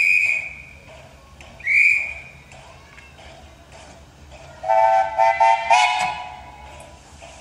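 Two short shrill blasts on a guard's whistle, then the steam locomotive's whistle answers: a lower, fuller tone sounded in a few quick toots run together and ending in a longer blast.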